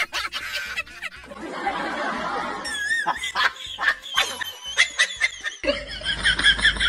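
People laughing and snickering in bouts, with a few sharp clicks about three to five seconds in.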